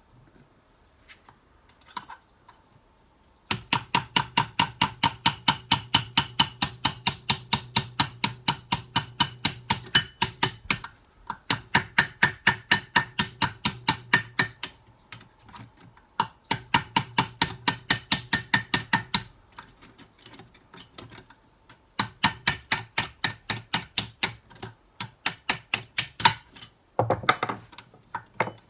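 Small hammer tapping rapidly on the steel internals of a Ford Type 9 gearbox, in four long runs of quick ringing metal strikes about five a second, with short pauses between the runs.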